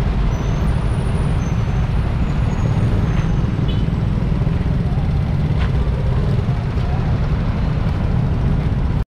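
Steady low rumble of a moped being ridden through slow city traffic: its small engine, the surrounding cars and motorcycles, and road noise blended together.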